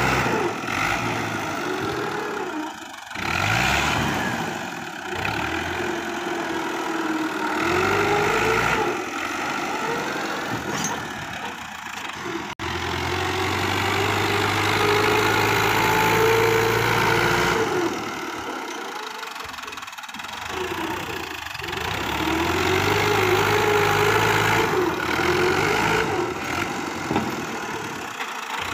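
Fiat 640 tractor's diesel engine working under load as its front blade pushes sand, rising and falling in pitch and loudness over several pushes, with a few short dips.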